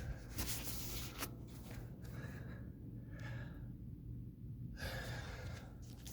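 A man breathing hard from weightlifting exertion: two spells of heavy breaths with a quieter stretch between them, over a steady low hum.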